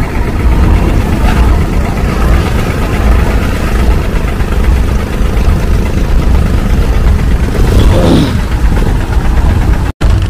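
Diesel engine of a Mahakam river passenger boat idling: a loud, steady, low rumble.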